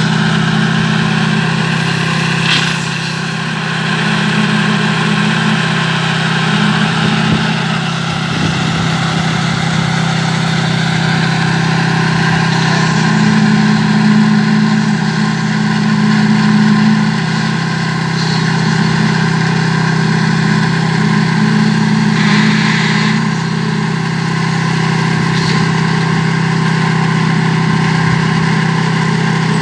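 Concrete mixer's engine running steadily at a constant speed, with a brief noisier rush about two and a half seconds in and again about twenty-two seconds in.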